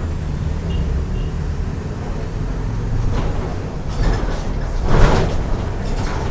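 Mercedes-Benz OF 1418 bus engine running with a steady low drone. A short noisy burst comes about four seconds in, and a louder one about a second later.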